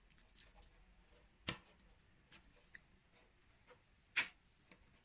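Light ticks and taps of hands handling a roll of clear adhesive tape and a white wire frame, with two sharper clicks, one about a second and a half in and one about four seconds in.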